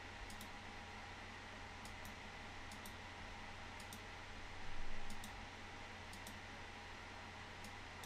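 Computer mouse clicking about a dozen times, often in quick pairs, over a faint steady hum and hiss. A brief, louder soft sound comes about five seconds in.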